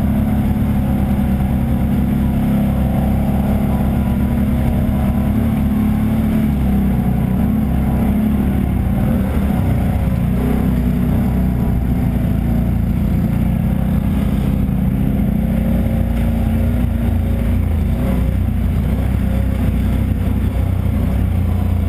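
ATV engine running steadily as the quad is ridden along a dirt trail, heard close from the handlebars.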